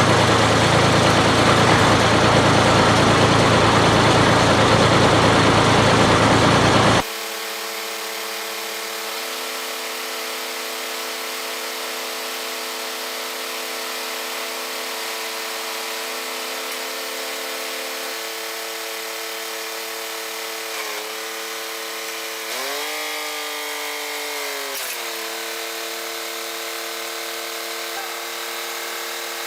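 Bucket truck's engine running with its hydraulic boom working. After about seven seconds the sound drops abruptly to a quieter, steady droning whine that dips and shifts in pitch briefly near the three-quarter mark.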